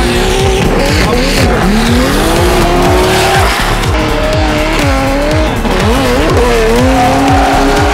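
Two drift cars sliding in tandem, their engines revving up and down with tyre squeal. Background music with a steady beat runs underneath.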